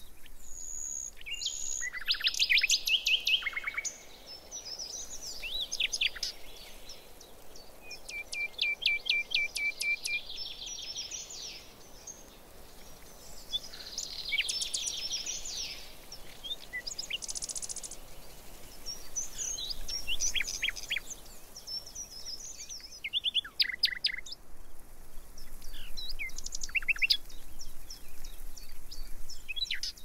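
Several songbirds singing in a pine wood, their chirps and song phrases overlapping, with a fast trill of repeated notes about eight seconds in.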